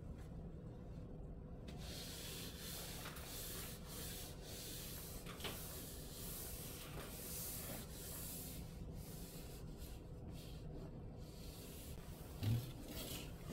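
A cloth is wiped across a countertop in repeated rubbing strokes, with a low thump near the end.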